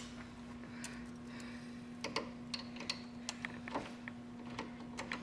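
Light metallic clicks and taps of small metal parts being handled and fitted back into a Linotype's metal pot mechanism, coming irregularly from about two seconds in, over a steady low hum.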